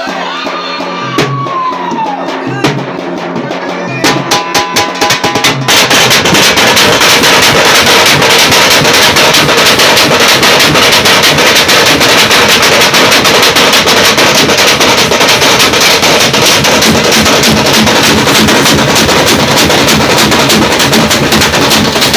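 A street drum band of large bass drums and smaller snare-type drums beaten with sticks. A few scattered strikes come first, then about six seconds in the whole group breaks into a loud, dense, fast rhythm that keeps going.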